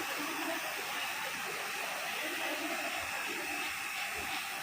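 Steady hiss of gas rushing out of the refrigerator's opened refrigeration pipe.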